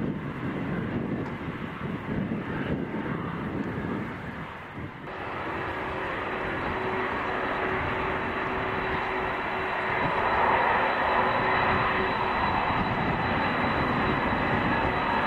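Jet engines of a Boeing 777 airliner: a continuous rush of engine noise. About five seconds in the sound changes abruptly, and from then on it grows louder, with a high steady whine over the rush.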